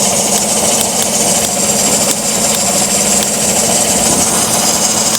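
Chevrolet Silverado 5.3 L V8 running at idle with a misfire in one cylinder, which the owner hears as a rough idle.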